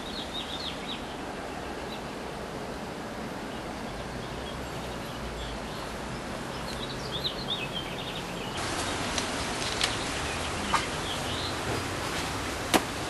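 Small birds chirping in short bursts, twice, over a steady hiss of outdoor background noise. In the second half the hiss grows louder and a few sharp clicks or knocks sound, the loudest near the end.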